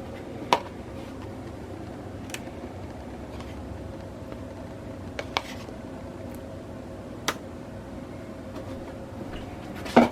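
A few sharp, separate clinks of kitchen utensils and cookware over a steady background hum, the loudest near the end.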